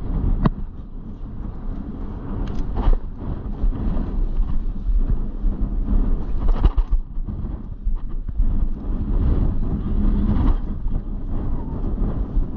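Wind buffeting a body-worn camera's microphone, a steady low rumble, with a few short knocks and rustles from gloved hands moving close to the camera.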